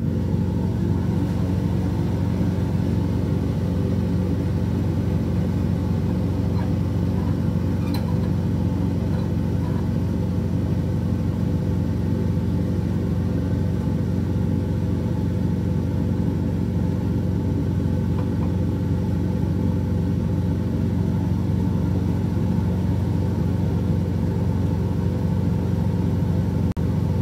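Laboratory fume hood's exhaust fan running: a loud, steady, noisy rumble as it draws air out of the hood.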